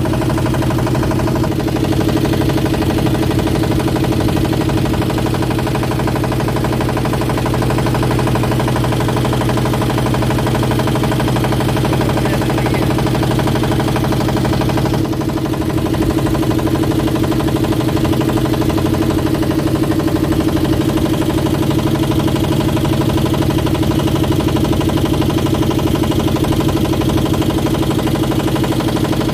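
Boat engine running steadily, a constant even drone, as the boat moves along the river.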